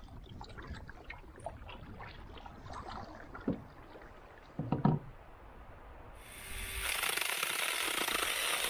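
Quiet water and wind sounds from a canoe on a lake, with a brief loud sound about five seconds in. About six seconds in, a small handheld chainsaw starts cutting through split hardwood firewood and runs loudly.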